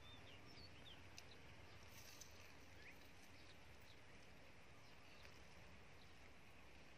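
Near silence: faint outdoor ambience, with a few brief faint bird chirps and soft clicks in the first three seconds.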